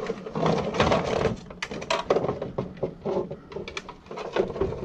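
Irregular clicks, knocks and rattles of small hard objects being handled and set down on a work surface.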